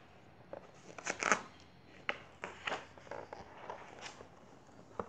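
Pages of a hardcover picture book being turned by hand: a string of short paper rustles and crackles, the loudest about a second in.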